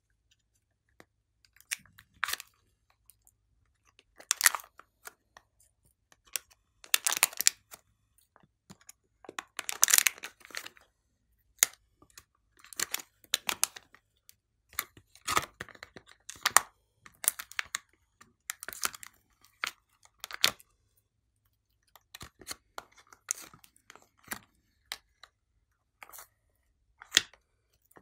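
Clear plastic blister tray crinkling and crackling in irregular bursts as sticks of soft clay are peeled out of it.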